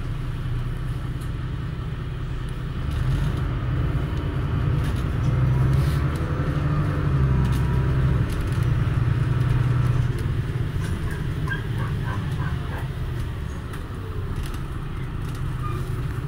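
Mercedes-Benz OM926LA inline-six diesel and ZF 6HP502 automatic gearbox of a Conecto LF city bus, heard from inside the bus. The engine rumble grows louder from about three seconds in as the bus pulls away and accelerates. About ten seconds in it eases off, and the bus slows toward a stop with a faint whine.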